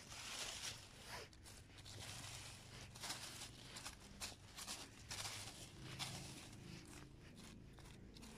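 Faint, irregular rustling and crackling of wet fallen leaves and undergrowth being disturbed as someone moves through the forest-floor litter.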